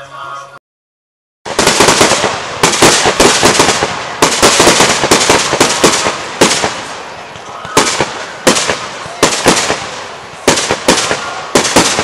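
Aerial fireworks bursting in a rapid barrage: dense crackling with many sharp bangs, several a second. It cuts in suddenly after a second of silence near the start.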